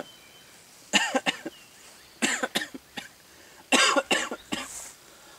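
A man coughing in three short fits, a few harsh coughs each, after breathing the smoke of a black powder flintlock shot.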